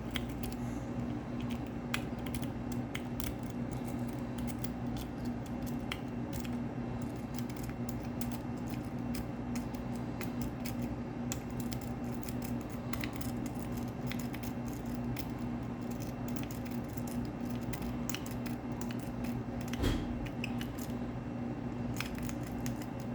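Lock pick raking the pin stack of a Kwikset deadbolt cylinder: a continuous run of small metallic clicks and scrapes, over a steady low hum.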